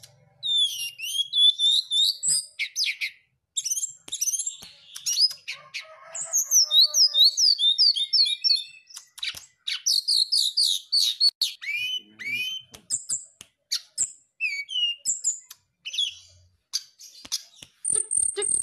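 Brown-chested jungle flycatcher (sikatan rimba dada coklat) singing: rapid phrases of high, quick sliding whistles and trills, separated by short pauses. It is the kind of song used as a lure to provoke rival birds.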